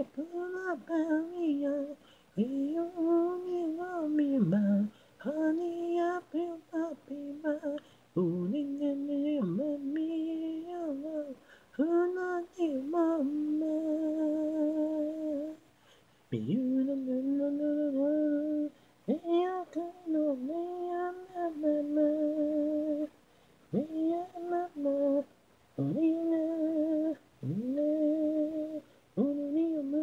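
A cappella lead vocal with no instruments: a man singing in a high register, in short phrases broken by near-silent gaps.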